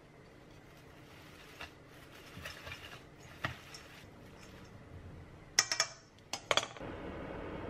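Shredded cabbage salad tossed with a wooden utensil in a stainless steel bowl: soft rustling, then two quick clusters of sharp clacks of wood against the steel bowl after about five and a half seconds. A steady hiss sets in near the end.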